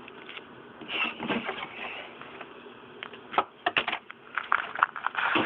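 Sheets of butyl-and-aluminium-foil car sound deadener being handled: rustling and a run of sharp taps and clicks, most of them about three to five seconds in.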